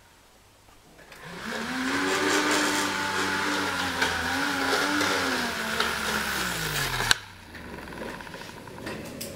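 Small 12 V car cooling fan propelling the maglev train along its rail: its motor whirs up to speed about a second in, with a hiss of air, and holds a slightly wavering pitch. The pitch then sinks for a second or two before the sound cuts off with a click.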